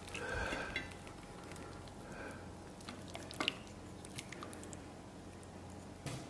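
Quiet, wet squishing of tender braised pork knuckle as the meat is pulled apart with chopsticks, with a few light sharp clicks.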